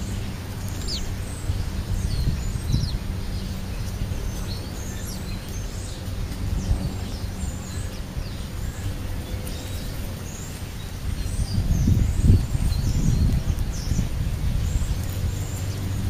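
House sparrows and European starlings calling at a feeding pile: many short, high chirps and squeaks scattered throughout. Underneath runs a steady low rumble with a faint hum, swelling for a couple of seconds about twelve seconds in.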